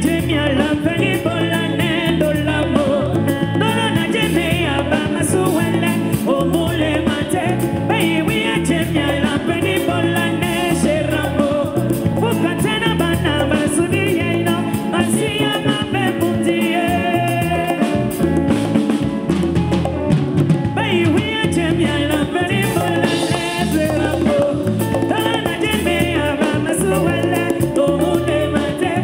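Live band playing an upbeat dance song, with drum kit, bass and electric guitars, and a woman singing lead into a microphone.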